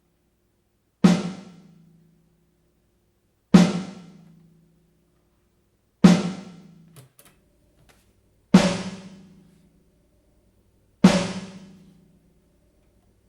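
Snare drum sample hit five times, about two and a half seconds apart, through a Lexicon PCM60 digital reverb on a short plate setting. Each hit leaves a reverb tail of about a second. The pairs compare a clean reverb with one whose front end is overdriven, which gives a crunchy, distorted reverb.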